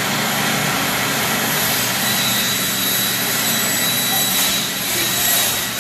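Large industrial circular saw running at speed and cutting into the plastic case of a lead-acid battery fed against the blade. The sound is a loud, steady rushing noise with a high whine and a low motor hum underneath.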